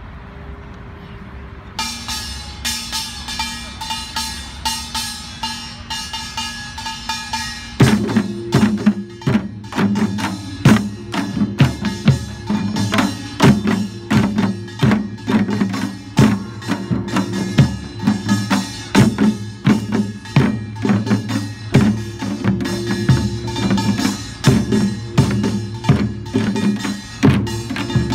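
Korean pungmul percussion ensemble playing. A high, ringing struck part starts the rhythm about two seconds in, and deep drums join about eight seconds in, keeping a loud, steady, driving beat.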